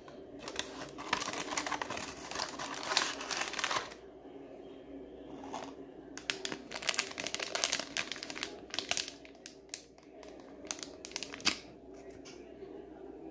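Foil blind-box bag for a vinyl figure crinkling as it is handled and squeezed. There is a long spell of crinkling in the first four seconds and a second spell from about six to nine and a half seconds in, then a few sharp crinkles.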